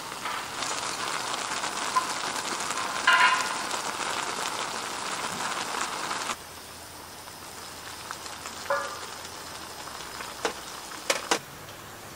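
A pot of instant ramen bubbling at a boil on a camp stove, a steady crackling hiss with a short clink about three seconds in. The boiling sound cuts off suddenly about halfway, leaving a quieter background with a few faint clicks.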